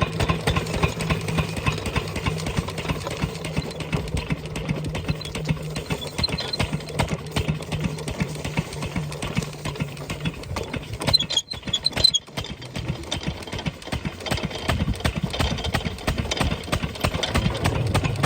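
12 hp single-cylinder diesel engine of an irrigation water pump set running steadily with a rapid, even knock of its firing strokes. About eleven seconds in the sound dips briefly, with a few sharp clicks.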